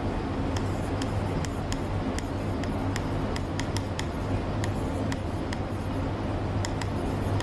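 Light ticks and taps of writing, two or three a second at an uneven pace, over a steady low electrical hum.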